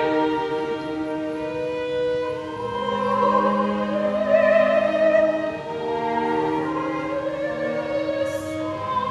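Opera singer singing with instrumental accompaniment, in long held notes.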